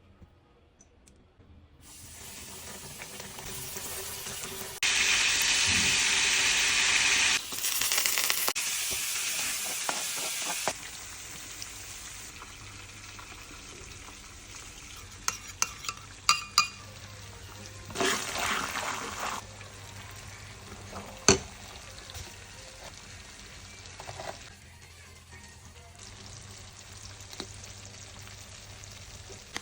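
Chicken wings frying, a steady sizzling hiss that grows much louder for a few seconds twice, with scattered clicks and knocks against the pan.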